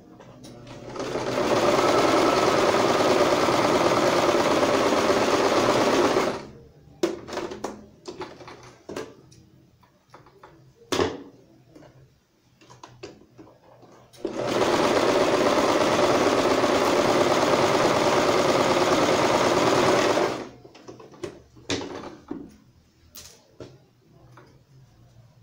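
Domestic electric sewing machine stitching a seam through fabric in two steady runs of about five seconds each, separated by a pause of several seconds with scattered small clicks and handling noises. More sharp clicks come near the end.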